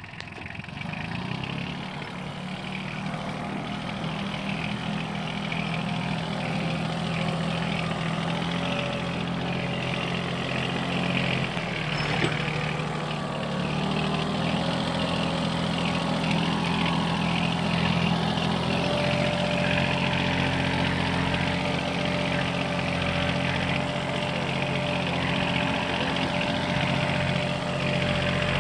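Yanmar AF-16 compact tractor's diesel engine running steadily under load while pulling a two-disc reversible plough through dry soil. A steady higher whine joins about two-thirds of the way through.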